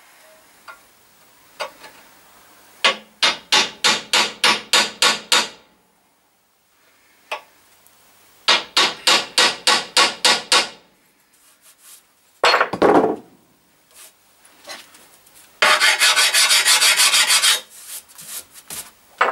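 Hammer tapping a centre punch to peen over an edge on a metal drill cowling clamped in a vise: two runs of quick light taps, about four a second. A heavier clatter comes about two-thirds of the way in, then a couple of seconds of filing near the end.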